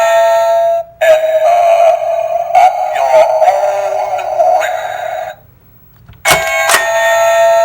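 Halloween pop-out snake doorbell prop going off through its small tinny speaker: a held electronic doorbell chime, then a warbling recorded spooky voice clip for about four seconds. After a short pause, a click as the button is pressed again and the chime starts over near the end.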